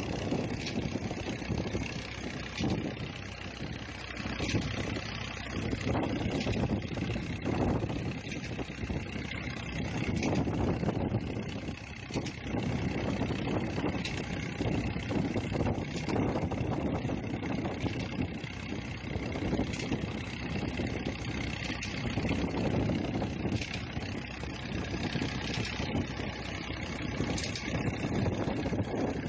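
Massey Ferguson 240 tractor's three-cylinder diesel engine running steadily to drive a belt-driven tubewell pump, mixed with the continuous gush of water pouring from a 6-inch delivery pipe into a concrete basin.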